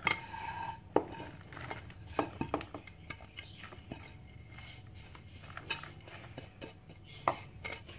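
A glazed clay plate knocking and scraping against the rim of a mixing bowl as ground almonds are swept off it by hand, with the soft rustle of the powder. Scattered sharp knocks and clicks, the loudest right at the start, about a second in and near the end, with a short ring about half a second in.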